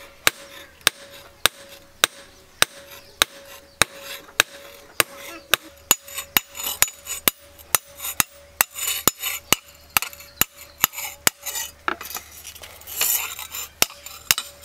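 Hand hammer striking a steel blade on an anvil stake in a steady rhythm, a little under two blows a second, forging the blade to shape.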